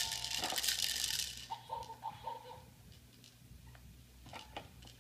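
Beads rattling inside the clear plastic dome toy on a baby activity jumper's tray as the baby handles it, for about the first second and a half, then quieter with a few light clicks.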